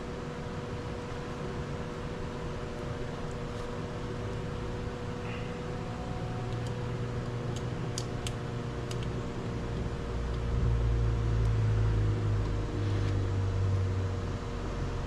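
Steady machine hum with fixed tones, like a fan running, with a few faint small clicks. A low rumble comes in about halfway and grows louder near the end.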